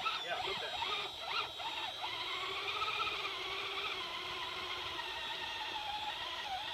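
Small electric winch motor on a radio-controlled scale crawler whining under load. Its pitch swings up and down in the first two seconds, then settles into a steady whine that sags lower near the end. The winch is straining without pulling the truck out, only making noise, which the drivers take for a dying winch.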